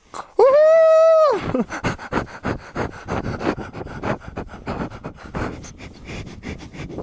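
A person gives one loud, held whoop lasting about a second, its pitch rising then dropping. Then come quick, irregular crunching steps of running down a snow slope, with heavy panting breaths.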